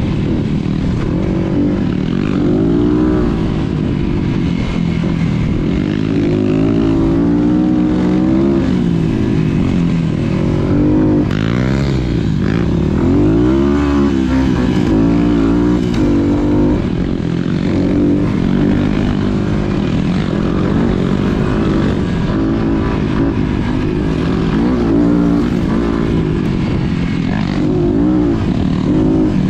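Dirt bike engine heard on board while riding a dirt trail, its pitch rising and falling over and over as the rider works the throttle and shifts gears.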